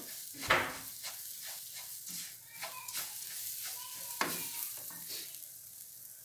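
Wooden spoon stirring and scraping bulgur as it toasts and sizzles in a pot, in short repeated strokes. Sharper knocks of the spoon against the pot come about half a second in and again around four seconds.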